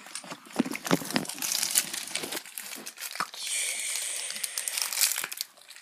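Plastic sweet packaging crinkling and rustling as it is handled, with scattered clicks and taps; the rustling is strongest a little past the middle.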